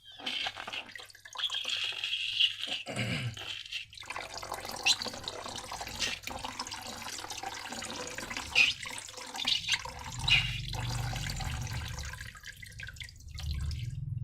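Wet, sticky slime mixture pouring and squelching, with a steady hiss of liquid for the first few seconds and then a run of sharp wet clicks and smacks.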